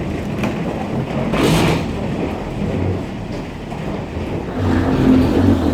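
Steady vehicle rumble with a short hiss about a second and a half in, and a heavier low hum building near the end.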